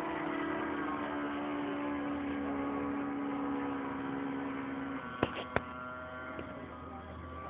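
Radio-controlled model airplane's motor and propeller droning overhead in flight, a steady buzzing tone that sinks slightly in pitch. Two sharp clicks about five seconds in.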